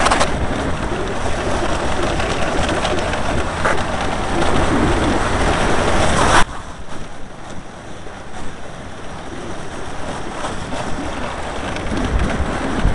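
Skeleton toboggan's steel runners hissing and rumbling over the ice at speed, mixed with a steady rush of wind on the helmet-mounted microphone. The roar drops sharply about six seconds in and carries on lower and steady.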